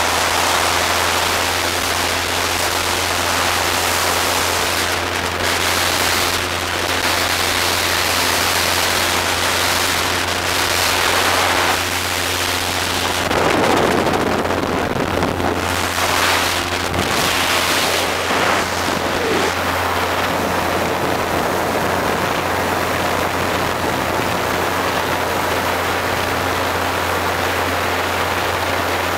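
Steady engine drone under heavy wind noise buffeting the microphone, the wind rushing louder around the middle.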